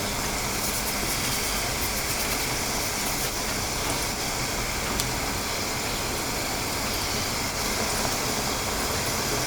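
Cheese biscuits frying in hot oil: a steady sizzle with many fine crackles, over a low steady hum.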